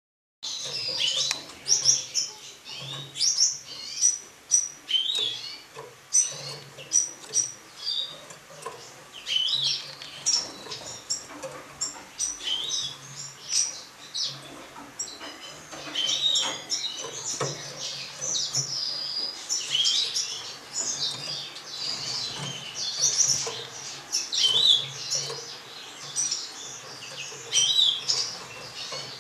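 Caged Gouldian finches chirping, a dense stream of short, high calls starting about half a second in.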